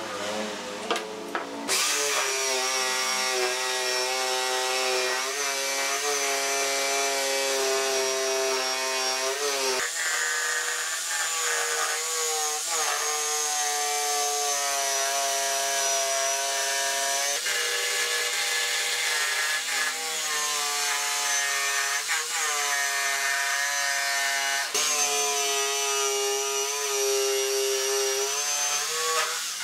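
Makita jigsaw cutting a curve through a pine board. The motor and blade run steadily with a high whine, and the pitch dips briefly every few seconds as the blade loads in the cut. A few light knocks come before it starts, about two seconds in.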